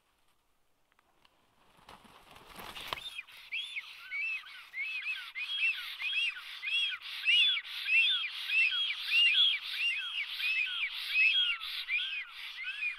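A black stork landing on the nest about two seconds in, a brief rustle of wingbeats and thuds, then a fast, steady series of high whistling calls, about three a second, from the pair of black storks at the nest as the female meets the arriving male.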